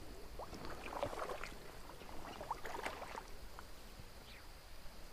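Faint stream-side ambience: light water movement with a few brief, faint rising chirps scattered through it.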